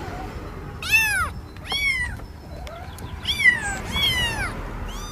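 A cat meowing repeatedly, about four meows, each rising and then falling in pitch.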